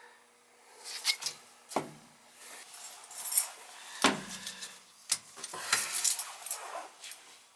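Tools and metal parts being handled: a scattered series of clinks, knocks and rattles, the loudest about four seconds in.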